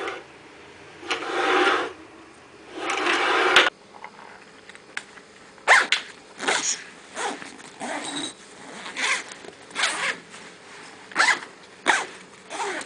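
Something being scraped or rubbed: three longer rasping strokes in the first four seconds, then a run of short, quick scrapes about one every two-thirds of a second.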